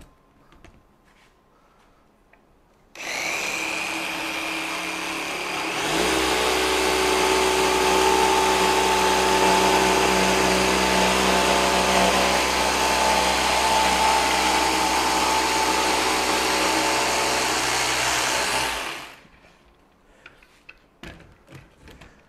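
A Festool PSC 420 Carvex 18V brushless cordless jigsaw starts about three seconds in and runs with a steady whine. A few seconds later it gets louder and fuller as the blade saws through plywood. The cut goes on steadily for about thirteen seconds, then the saw stops.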